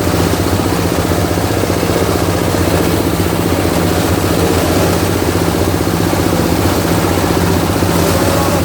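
Plywood and veneer waste grinding machine running steadily, a loud low drone with a fast, even pulsing that holds without change.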